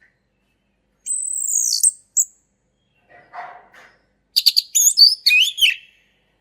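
Male orange-headed thrush singing: a long high whistle sliding downward, a short note, then a quick jumble of varied whistled notes rising and falling.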